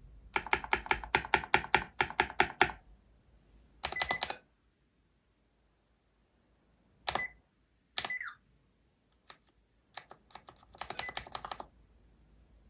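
Mechanical keyboard with tactile Holy Panda switches in a full-aluminium case, typed on: a fast run of keystrokes at about five a second for the first few seconds, then a short burst, two heavier single strokes with pauses between, scattered clicks and a final quick flurry of keys.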